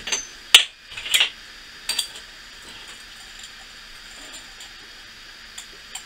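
Clinks and knocks of a ceramic sugar-bowl lid and china set down on a glass tabletop: four sharp clinks in the first two seconds, the loudest about half a second in, then two faint clicks near the end.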